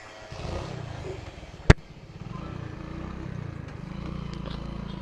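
Motorcycle engine running as the bike moves off, its pitch rising and falling with the throttle. A single sharp click about one and a half seconds in.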